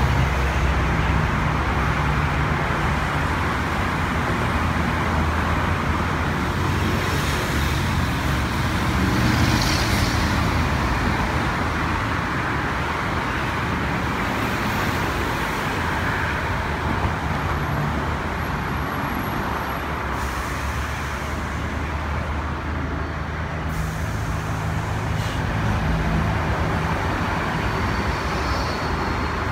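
Steady road traffic: cars and buses driving past, with a low engine rumble under the tyre and traffic noise.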